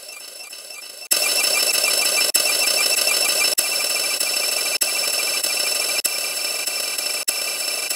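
A harsh, distorted wall of sound made from many copies of a clip's audio stacked on top of each other, giving a dense buzzing drone with steady high tones. It jumps much louder about a second in and cuts out briefly about every 1.2 seconds.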